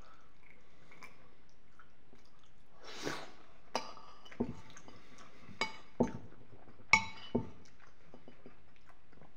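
A spoon clinking and scraping against a ceramic bowl: about six short ringing clinks between about four and seven and a half seconds in, the loudest near seven seconds. A softer wet mouth sound comes about three seconds in.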